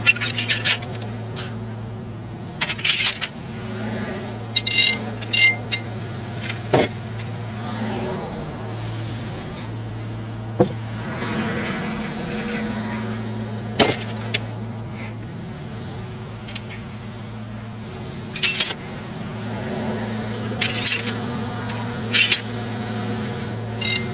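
Tractor engine running steadily to drive a homemade circular sawmill, a constant low hum, with a few sharp knocks and several short metallic clinks.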